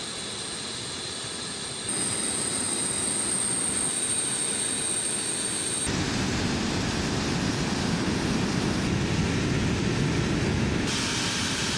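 Tu-160 bomber's jet engines running: a steady high turbine whine over a broad rush, turning louder and deeper about six seconds in.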